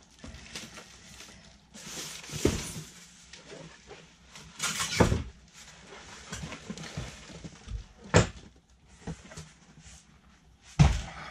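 Cardboard box and packing pieces rustling and scraping as a boxed portable propane torpedo heater is pulled out, with several knocks and thumps, a loud scrape about five seconds in and sharp knocks about eight and eleven seconds in.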